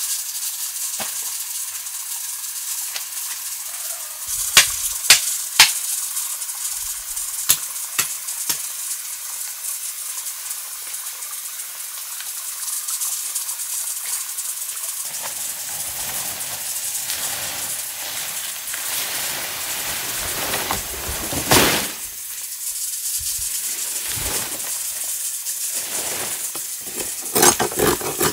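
Food sizzling as it fries over a fire: a steady hiss with sharp clicks and knocks now and then, a few close together about five seconds in, one louder one late on and a quick cluster at the end.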